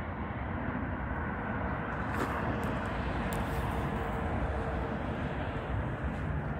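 Steady outdoor background noise with a low rumble, a faint hum through the middle and a few brief soft clicks.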